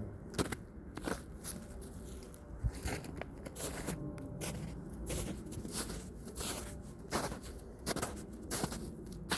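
Footsteps crunching through snow at a walking pace, about two steps a second.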